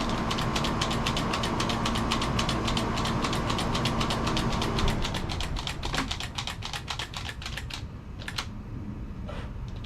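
Gel blaster's powered magazine running after its load button is pressed: a small motor hums under a fast, even rattle of clicks as it feeds gel balls. It cuts off about five seconds in, followed by a few single clicks.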